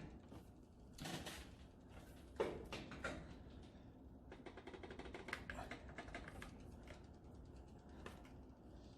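Faint, irregular light clicks and taps as a repaired stove part is fitted back on and worked by hand to test it, with louder knocks about one and two and a half seconds in.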